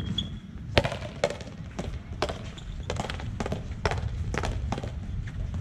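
Paleta frontón rally: wooden paddles strike the rubber ball and the ball smacks against the front wall, a string of sharp knocks about two a second.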